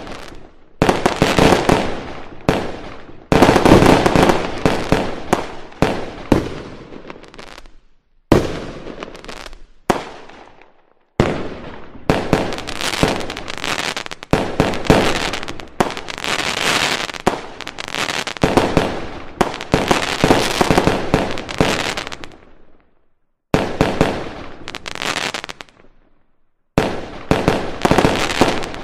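Fireworks display: dense runs of overlapping shell bursts, bangs and crackle. The sound drops out suddenly to silence several times and restarts just as abruptly.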